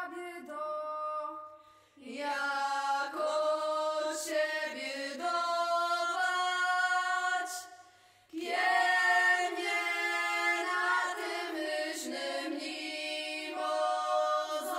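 A choir singing in long held notes, in phrases broken by two short pauses, about two seconds in and about eight seconds in.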